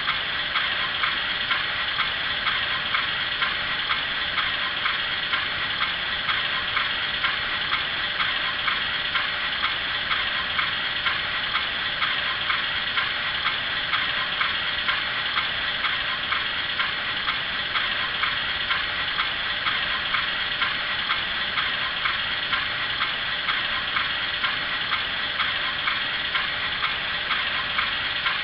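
ESU LokSound decoder's recorded GE U28C diesel idling, played through the HO scale model's small speaker: a steady, even beat of about two pulses a second.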